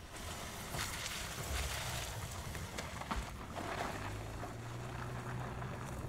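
Skoda Kodiaq SUV driving away slowly over a rocky track, its engine and tyres heard with wind on the microphone. A low engine hum holds steady from about four seconds in.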